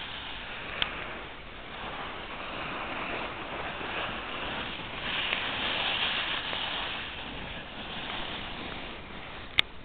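Steady rushing noise of wind on the microphone, swelling for a couple of seconds in the middle, with a sharp click about a second in and another near the end.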